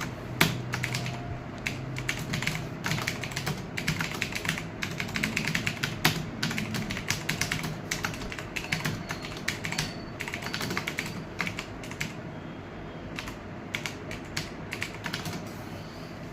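Fast typing on a computer keyboard: a dense, irregular stream of key clicks that thins out briefly about twelve seconds in.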